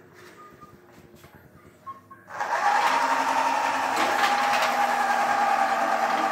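Rubber-powered model helicopter's rotors whirring as the wound rubber motor unwinds. It starts suddenly a couple of seconds in, when the model is let go, then runs on steadily with a pitch that falls slightly.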